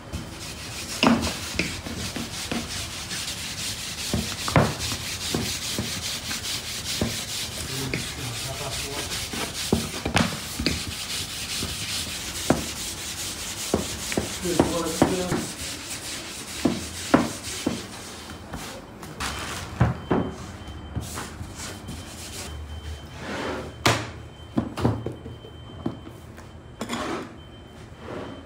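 Wooden rolling pin rolling out somsa dough on a wooden worktable: a steady rubbing for roughly the first two-thirds, with knocks and taps as dough is pressed and handled, then only scattered taps near the end.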